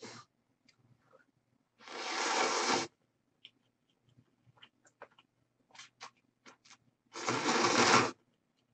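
Close-miked eating of instant udon noodles and cubed radish kimchi: two loud eating noises of about a second each, one about two seconds in and one near the end, with soft chewing clicks and chopstick taps between.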